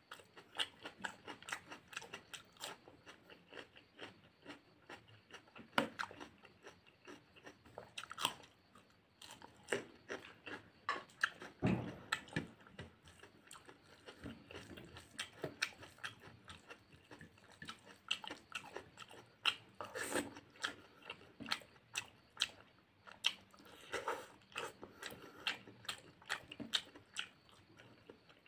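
A man chewing and smacking his lips close to a lapel microphone as he eats rice and raw vegetables by hand: a dense, irregular run of short wet mouth clicks and crunches.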